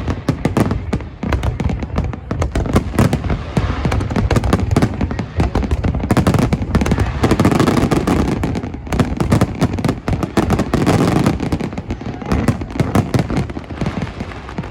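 Fireworks display: a dense, continuous barrage of bangs and crackles, heaviest in the middle.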